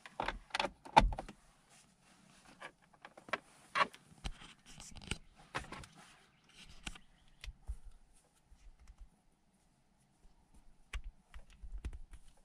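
Small clicks, taps and rattles of a USB cable being handled and its plug pushed into a car's console USB port, with the sharpest click about a second in and further scattered handling clicks, then a quiet spell before a few more near the end.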